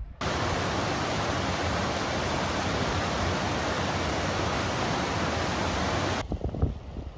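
Bubbs Creek rushing down its rocky bed: a loud, even rush of water that starts abruptly and cuts off about six seconds in. A few low thumps follow near the end.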